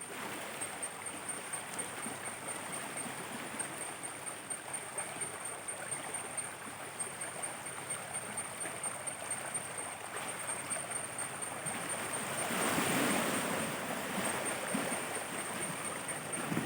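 Freshwater stream running and gurgling where it flows into the sea, with a surge of louder rushing water about twelve seconds in. A thin, steady high-pitched whine sits over it.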